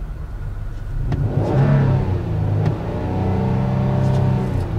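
2015 Ford Explorer's 3.5-litre V6 revved in Park, heard from inside the cabin. It rises about a second in, is held up for a few seconds, then falls back near the end.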